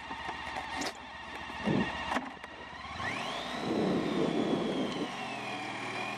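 Honda ST1300 Pan European's V4 engine running as the motorcycle pulls away at low speed, with a whine that rises in pitch about three seconds in, holds, then eases down. Two short clicks sound within the first two seconds.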